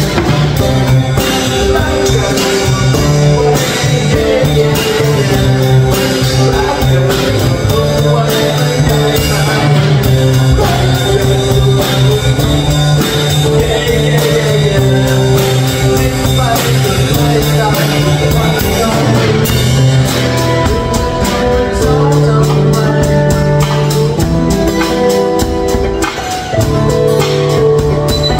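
Live acoustic band: two steel-string acoustic guitars strummed over a drum kit, with a man singing. The music plays continuously, dipping briefly near the end.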